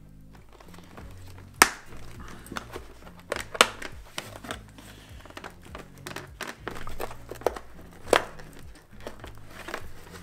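Rustling and crinkling of motorcycle helmet liner padding and fabric as it is pressed back into the shell, with irregular clicks and three sharp snaps, about one and a half, three and a half and eight seconds in. Quiet background music runs underneath.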